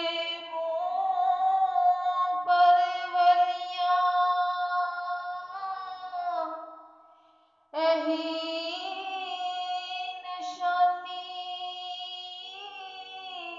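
A high female voice sings Urdu verses unaccompanied, holding long drawn-out notes in two phrases, with a short breath pause about seven seconds in.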